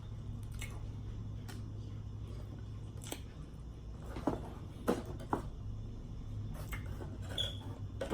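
Someone eating pizza close to the microphone: scattered wet mouth smacks and chewing clicks, the loudest about halfway through, over a steady low hum.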